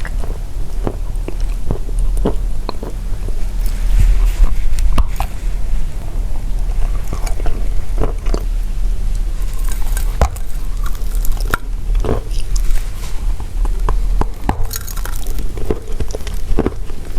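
Pressed chalk tiles being bitten and chewed close to the microphone: irregular dry crunches, several close together at times, over a steady low hum.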